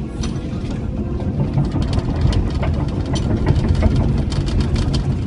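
Cat 312E L excavator's diesel engine running steadily while its Herder mowing bucket works, with many sharp, irregular clicks and rattles from the cutter bar over the engine noise.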